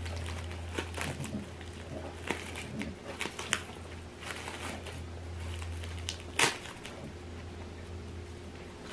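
Tightly wrapped takeout food containers being unwrapped: plastic wrap crinkling and tearing with scattered clicks and rustles, and one sharper snap about six and a half seconds in. A steady low hum runs underneath.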